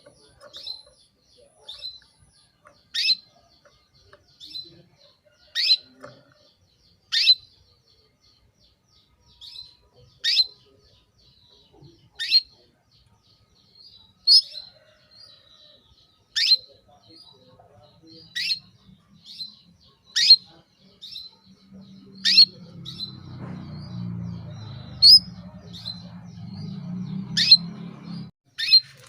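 Female canary giving short, sharp descending chirp calls, repeated every one to two seconds: the calling of a hen in breeding condition, used to rouse male canaries. A low rumble runs underneath for several seconds near the end.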